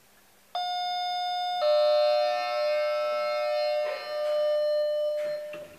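Lift arrival chime ringing two notes, the second lower than the first and ringing on as it fades, announcing a car travelling down.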